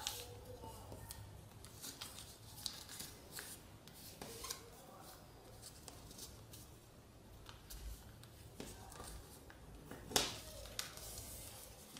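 Sheet of paper being folded and creased by hand: soft, scattered rustles and crinkles as fingers slide along and press the folds, with one louder rustle about ten seconds in.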